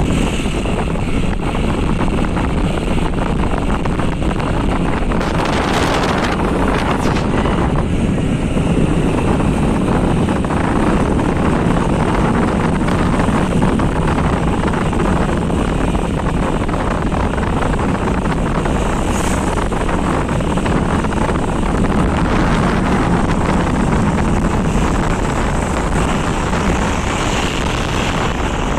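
Wind rushing over the microphone and a motorcycle engine running, heard from the moving bike. The noise is steady throughout, with a brief louder rush about six seconds in.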